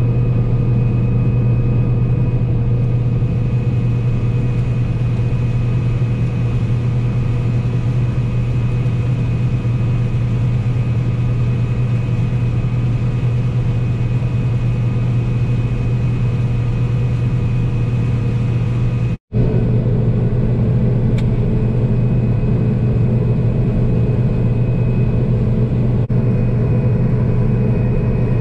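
Combine harvester running steadily under harvest load: a constant engine and machinery drone with a strong low hum and a few steady higher whines. It cuts out for an instant about two-thirds of the way through and picks up again unchanged.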